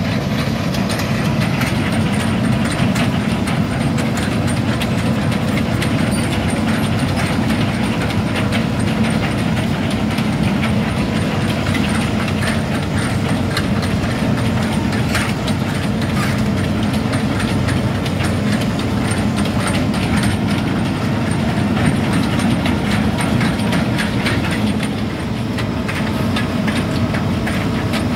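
Hitachi Zaxis 210F amphibious excavator travelling on its steel pontoon tracks: the diesel engine runs steadily under a constant clatter from the track cleats.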